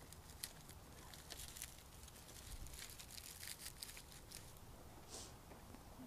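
Faint rustling with scattered small clicks and crackles: dry twigs being woven into a dried grapevine wreath base.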